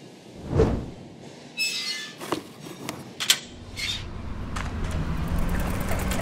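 A few knocks and clicks and a short squeak, then from about three and a half seconds in the steady, building rumble of a bicycle's wheels spinning on training rollers.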